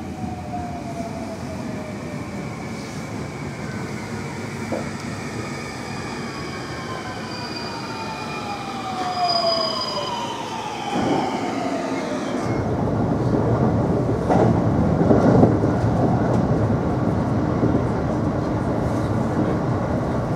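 JR West 521 series electric train pulling in and braking: its inverter-driven traction motors whine in several tones that fall steadily in pitch as it slows. About twelve seconds in this gives way to the steady, deeper running noise of the train heard from inside while it travels.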